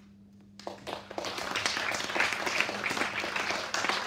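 A small audience clapping, starting about half a second in and quickly building to steady applause at the end of a poem.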